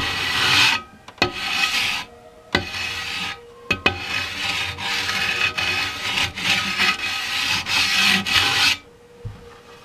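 Long sanding block rubbed back and forth by hand over cured JB Weld epoxy filler on a Yamaha FZR wheel rim. It starts as three short separate passes with light knocks between them, then runs as steady continuous sanding for about five seconds before stopping near the end.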